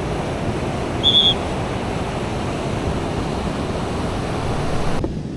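Sea surf breaking on a beach: a steady rush of waves, with a short high chirp about a second in. The hiss drops away abruptly near the end.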